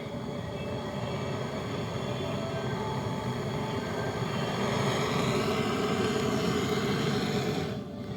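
A machine running steadily: an even mechanical hum with several steady tones over a rushing noise, slowly growing louder, with a brief dip near the end.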